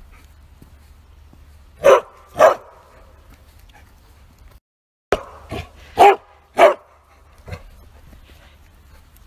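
Bearded collie barking while walking: two loud barks about two seconds in, then after a brief break three more loud barks in quick succession and a weaker one.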